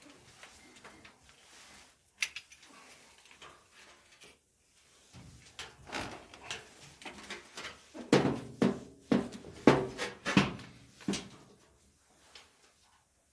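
Knocks and clatters of dryer parts being handled, scattered at first, then a quick run of loud sharp knocks from about eight to eleven seconds in.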